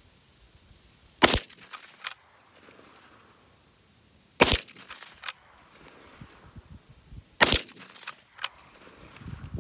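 Three .357 Magnum shots from an Uberti 1873 Winchester lever-action short rifle, about three seconds apart. A lighter metallic clack follows each shot as the lever is worked to chamber the next round.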